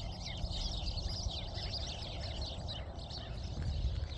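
Many small birds chirping and calling at once, a dense chorus of short, high chirps that keeps going, over a low steady rumble.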